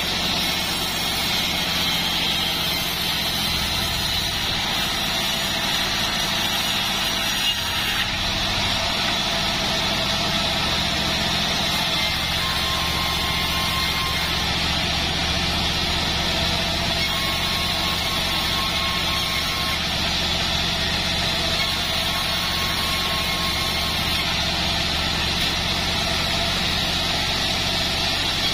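Band sawmill running steadily, its blade ripping lengthwise through a log of joar (Siamese cassia) wood: a constant machine hum under a steady cutting hiss.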